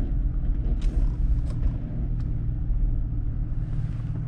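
Car interior noise while driving: a steady low rumble of engine and tyres heard from inside the cabin, with a few faint ticks in the first couple of seconds.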